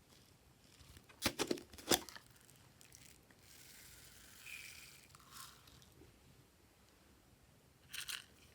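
Hands squishing and pressing glossy slime, making sharp crackling pops. There is a loud cluster about a second in, a softer hiss in the middle, and another short burst near the end.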